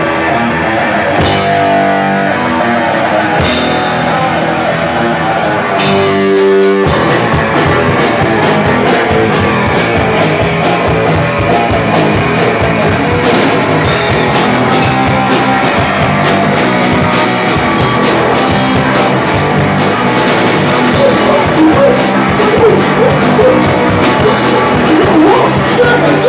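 Punk band playing live: an electric guitar intro with a few separate drum and cymbal hits, then the full band with drums, bass and guitars comes in about seven seconds in. Vocals come in near the end.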